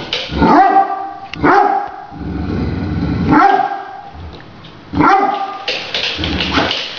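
Great Dane barking about five times, at spaced intervals, at a remote-controlled toy tarantula, with lower rough sound between the barks.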